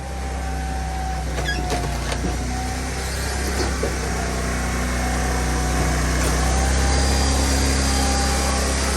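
Dyna firewood processor running steadily under load, its engine droning low with a faint steady whine above it, and a few light knocks about two seconds in.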